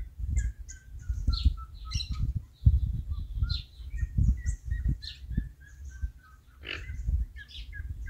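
Several birds chirping and calling, with a run of short repeated notes, over gusts of wind rumbling on the microphone.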